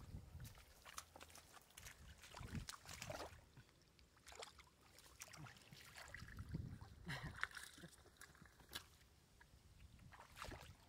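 Faint sloshing and squelching of hands and feet working in shallow muddy paddy water, in scattered irregular strokes.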